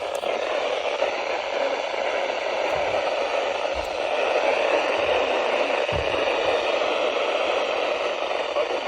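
Steady hiss of radio static from a weather-radio receiver, the signal weak enough that the broadcast voice is lost in the noise.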